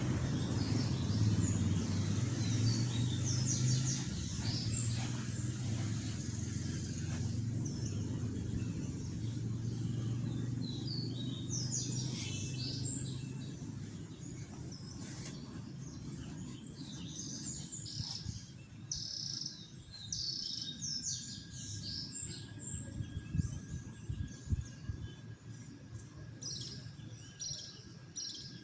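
Several small birds chirping and calling, in quick overlapping high notes that grow busier about halfway through. A low steady hum underneath fades out about halfway.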